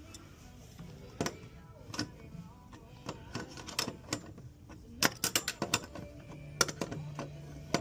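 Sharp clicks and knocks of hand tools at work on pipework, uneven: single knocks about one and two seconds in, then a quick flurry of clicks about five seconds in. A low steady hum starts near the end.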